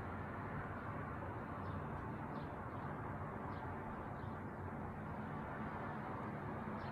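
Steady background noise with a low hum, and a few faint, short high chirps in the middle.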